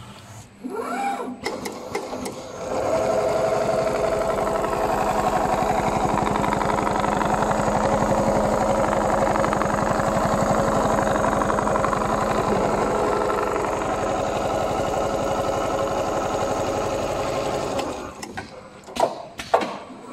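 Richpeace CNC sewing machine stitching through padded leather-like sheet. It speeds up over the first couple of seconds, runs at a fast, even needle rhythm, then stops near the end, followed by a few sharp clicks and knocks.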